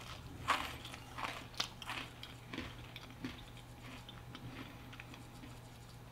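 Mouth chewing a bite of a crunchy Dark Chocolate Oreo cookie: short crunches about every half second, growing fainter and dying away after about three seconds.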